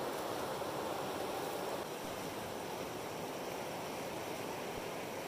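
Steady rushing of a wide river running over shallow stony rapids, a little softer from about two seconds in.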